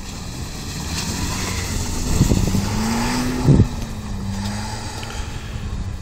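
Nissan Note's engine running as the car drives on snow, its pitch rising about two seconds in and easing back down over the next couple of seconds. A couple of low thumps come through, the louder one about three and a half seconds in.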